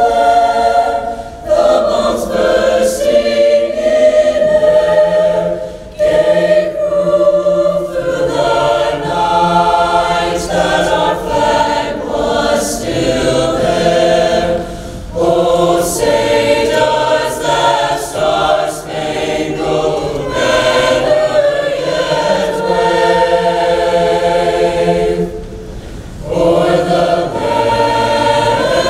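A choir singing in long, held phrases, with short breaks between phrases.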